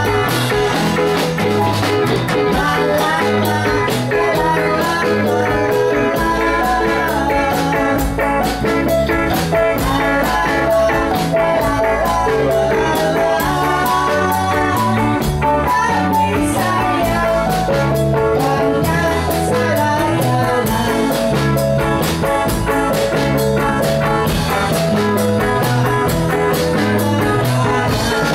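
Live band playing at full volume: electric guitar over bass and a drum kit, with a steady beat and a repeating bass line.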